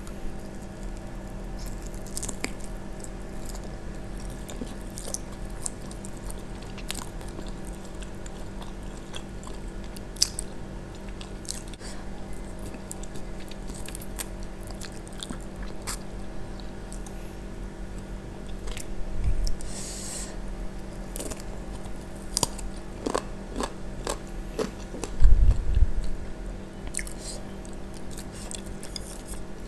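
Close-miked biting and chewing of grilled chicken, with scattered wet mouth clicks and smacks and occasional crunches. There is a faint steady hum underneath and one loud low thump near the end.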